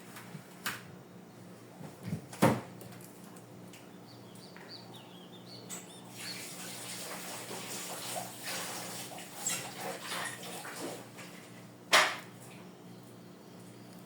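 Household items being handled while a refrigerator is cleaned: a few sharp knocks of things set down, the loudest near the end, with several seconds of rustling, scrubbing noise in the middle.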